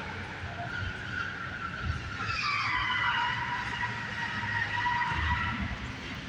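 Car tyres squealing in long, drawn-out, high-pitched squeals that slide down in pitch partway through, as a car is driven hard around a tight test-drive track, with a low engine rumble underneath.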